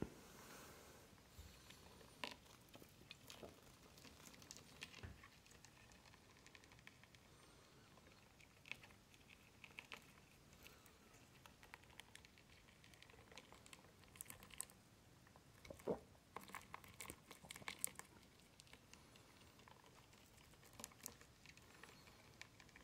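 Faint scattered ticks and scratches of a lesser white-toothed shrew scurrying over the smooth floor and walls of a plastic tub, with a denser run of sharper clicks about two-thirds of the way through.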